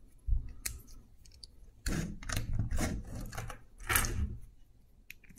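Small plastic building-brick pieces clicking and rattling as they are handled and pressed onto a model, with a few louder handling scrapes about two and four seconds in.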